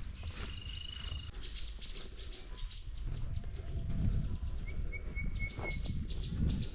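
Wild birds calling in the bush: a few thin high whistles and short chirps, over a low rumbling outdoor background.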